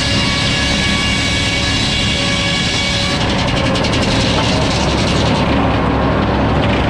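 Sawmill running while sawing a log: a loud, steady machine noise with a held whine. About halfway through, the high hiss of the cut thins out.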